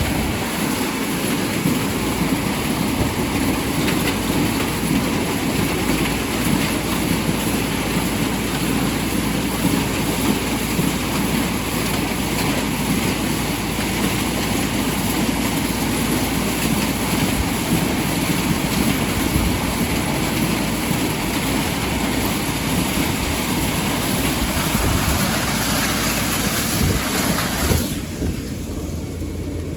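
Farm tractor and its implement running, a loud steady mechanical rattle and clatter. Near the end the clatter drops away abruptly, leaving a lower hum.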